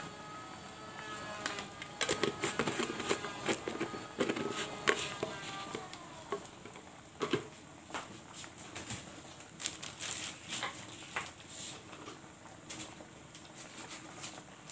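Kitchen clatter: a run of small clicks and light knocks from utensils and cookware being handled, busiest from about two seconds in and thinning out later, with faint music in the background at the start.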